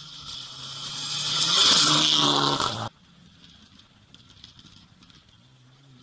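Rally car approaching at speed on a gravel stage, its engine at full throttle and its tyres hissing on the gravel, growing louder until the sound cuts off abruptly about three seconds in.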